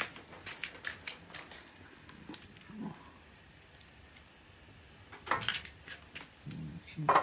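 Dogo Argentino dogs giving a few short vocal sounds, the loudest about five and a half seconds in and just before the end, among scattered light clicks and knocks.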